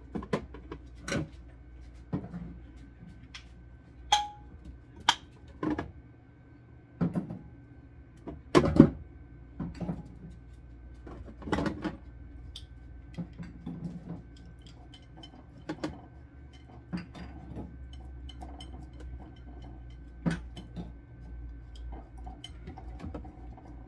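Glass jars with metal screw lids being lifted off a plastic refrigerator door shelf and set down, with irregular clinks and knocks; the loudest clatter comes about nine seconds in. A faint steady hum runs underneath.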